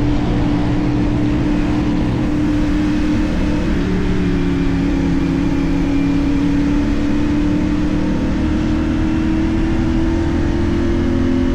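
CFMoto 450NK's parallel-twin engine running through a LeoVince aftermarket exhaust at fairly steady revs, its pitch dipping slightly about four seconds in and then slowly climbing.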